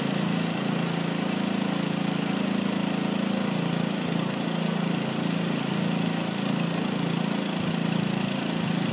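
Sewer jetter's engine running steadily at a constant speed while the jetter nozzle clears a clogged sewer line.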